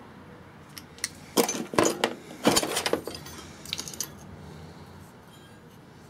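Pliers clinking and rattling against the small metal igniter electrode and burner parts of an absorption fridge, in a quick cluster of sharp clinks and then a short burst a moment later, as the electrode is bent to widen its spark gap.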